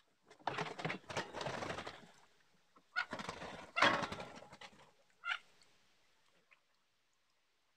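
Ducks' wings flapping and scuffling in two quick bursts as the birds rush out, followed by a short sharp click about five seconds in.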